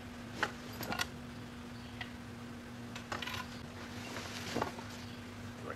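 Camera crane sections being pulled out of a cloth bag and set down on pavement: a few scattered clinks and knocks of the tubes, with some rustling of the bag.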